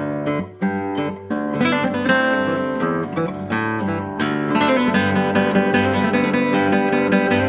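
Background music of an acoustic guitar, picked and strummed. About halfway through the strumming turns faster and fuller.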